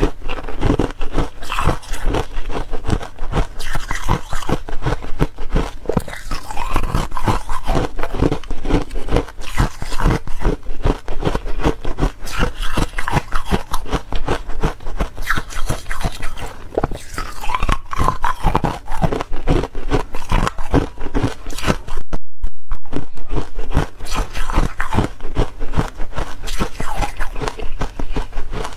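Ice being chewed and crunched close up: a dense, continuous run of crackling crunches and clicks as the pieces break between the teeth.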